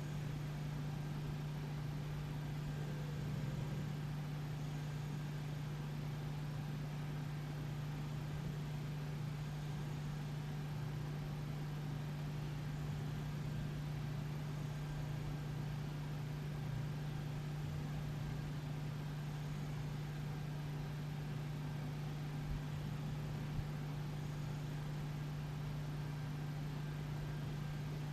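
Steady low hum with a faint even hiss: quiet household room tone from an appliance or electrical hum.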